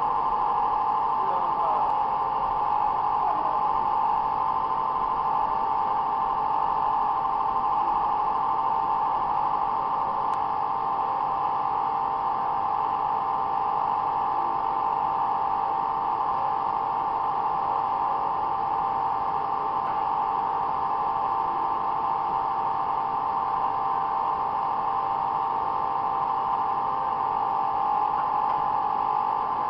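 FC50WD mobile foam-concrete unit running with a steady, unbroken machine drone that centres on a high hum.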